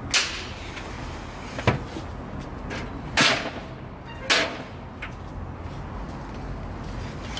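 A small wooden folding stool knocking and scraping on a tiled floor as a toddler handles it: four separate knocks over the first four and a half seconds, the later two longer and scrapier.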